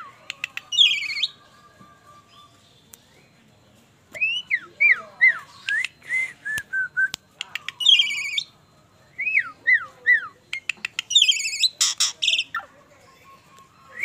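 Asian pied starling singing in bouts: clear whistled notes that rise and fall, mixed with harsh, rattling chatter and sharp clicks. There is a pause of a couple of seconds after the first phrase, then phrases follow closely.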